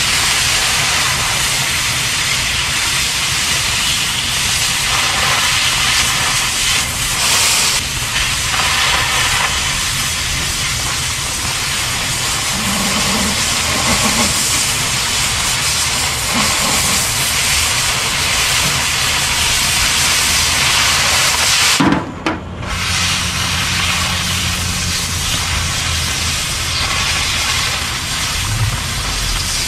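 Oxy-fuel cutting torch cutting through steel plate: a loud, steady hiss of the cutting jet, which breaks off for a moment about two-thirds of the way through and then carries on.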